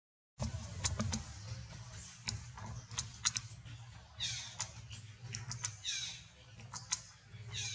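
Infant macaque crying: short high squeals that fall in pitch, three of them in the second half, among scattered sharp clicks and a low steady rumble.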